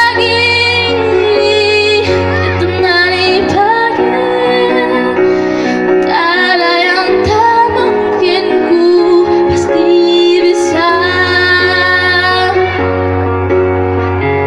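A schoolgirl singing a song into a microphone, amplified through loudspeakers, with held, sweet notes over steady instrumental accompaniment.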